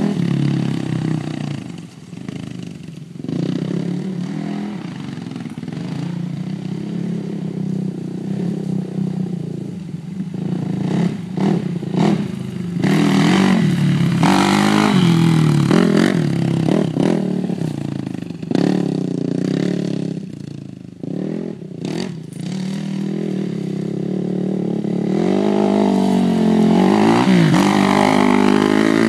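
Suzuki LTR 450 quad's single-cylinder four-stroke engine running and revving up and down repeatedly, with a series of sharp clacks in the middle stretch.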